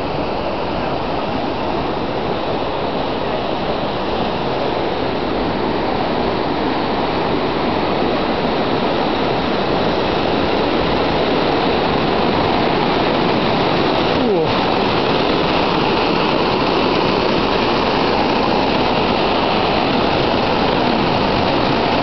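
Man-made waterfall pouring over a rock face and splashing into a pool and onto the walkway: a steady rush of falling water, a little louder in the second half.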